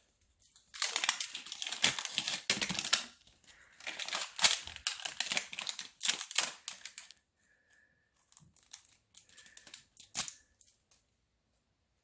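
Wrapping of an LOL Surprise doll package being torn open and crinkled by hand, in two long stretches of tearing and rustling, then a few scattered crinkles and clicks.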